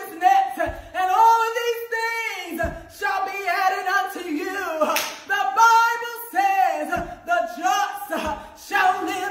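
A woman singing long, sliding held notes in a gospel style, with a few sharp hand claps between phrases.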